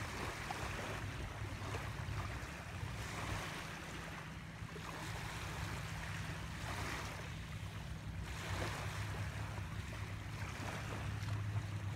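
Small lake waves washing against the shore, rising every two to three seconds, over a steady low rumble of wind on the microphone.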